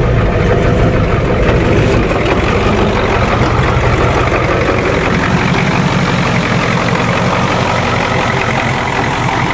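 Ford diesel truck engine idling steadily, running smoothly just after starting.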